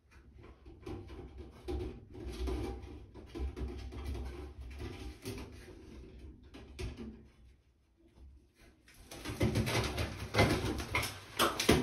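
Flexible foil air-vent duct rustling and crinkling as it is worked onto the collar of a bathroom exhaust fan housing in the ceiling, with a louder, denser spell of crinkling and clatter about nine seconds in.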